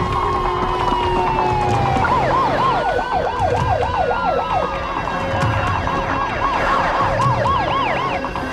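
Police car sirens. One starts with a slow wail falling in pitch, then about two seconds in switches to a fast yelp, rising and falling about three times a second, while a second siren wails more slowly over it.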